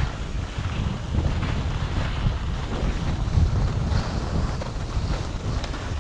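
Wind buffeting a GoPro's microphone during a downhill ski run: a steady low rumble, with the hiss of skis sliding on snow.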